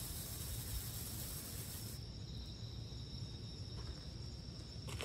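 Small ground fountain firework hissing as it sprays sparks; the hiss fades about two seconds in as the firework burns out.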